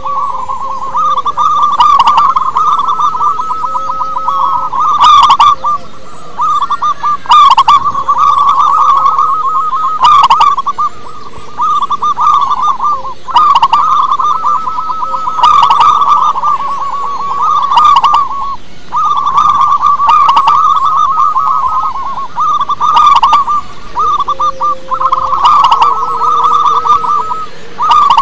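Zebra dove (perkutut) singing: long runs of rapid, trilled cooing notes around one pitch, in phrases a few seconds long broken by short pauses.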